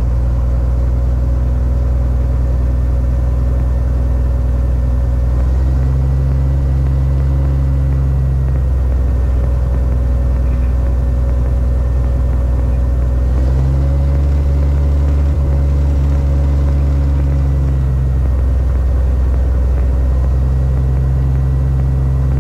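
Single-engine aerobatic plane's piston engine and propeller running at taxi power, heard loud from inside the closed cockpit. The steady drone shifts slightly in pitch several times.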